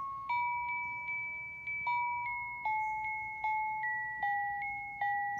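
Battery-powered musical Santa decoration playing its electronic tune in bell-like tones, a melody with a second line above it, about two or three notes a second, each note struck and fading.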